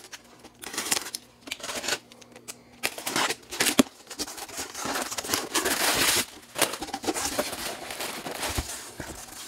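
A replacement A/C compressor being unpacked: packaging rustling and crinkling, with scattered knocks and clicks as it is handled. A denser stretch of rustling comes about halfway through.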